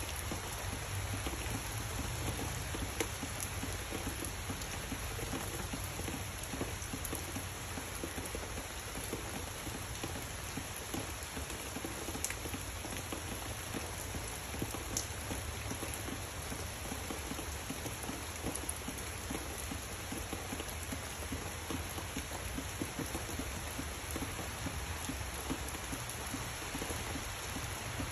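Steady rain falling on dense tree foliage: an even hiss with a few sharper drop ticks.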